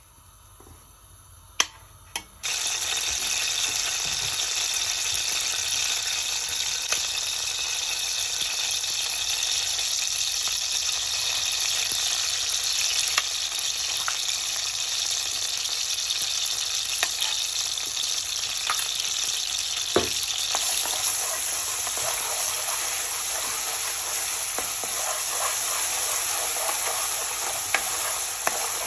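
Ginger-garlic paste frying in hot ghee in a steel wok: a steady, loud sizzle that starts suddenly after a quiet couple of seconds with two clicks. A spoon clicks and scrapes against the pan as the paste is stirred.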